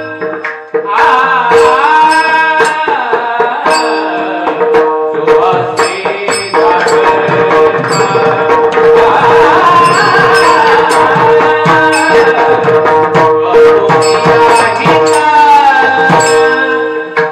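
Marathi kirtan music: a male voice singing a devotional melody over a steady held drone note, with dense mridang drumming between and under the sung phrases.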